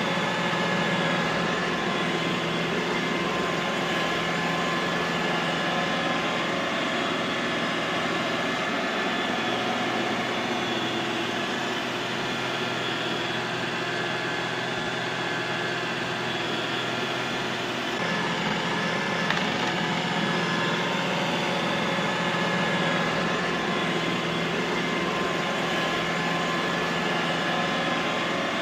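Robot vacuum cleaner running steadily: a continuous whir from its motor and fan with a steady low hum and a fainter high whine, the hum shifting slightly partway through.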